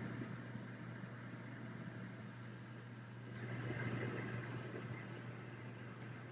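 Fire burning in a fireplace: a steady low rumble and hiss that swells about halfway through, with a faint pop near the end.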